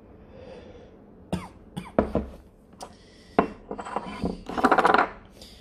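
A person coughing in a string of sharp, irregular coughs, ending in a rapid, rasping burst near the end: coughing from a hit of vaporizer vapour.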